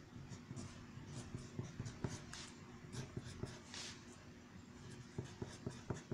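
Pencil writing on paper: soft, faint scratching strokes, with a few light ticks near the end.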